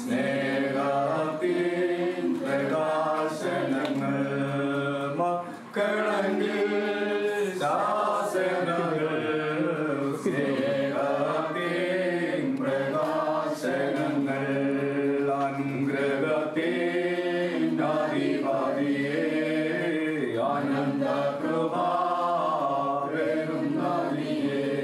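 Unaccompanied liturgical chanting of an Orthodox church service: voices singing a slow hymn in long, flowing lines that continue almost without pause.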